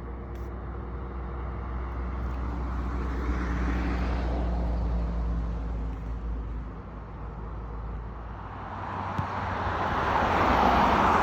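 Road traffic: a steady low engine hum, with the noise of passing vehicles swelling and fading about halfway through and again near the end.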